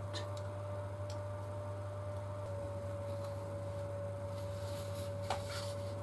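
Precision screwdriver and tiny screws being worked on a DJI Mavic gimbal camera: a few faint small clicks, the sharpest about five seconds in, over a steady low hum and a steady higher-pitched whine.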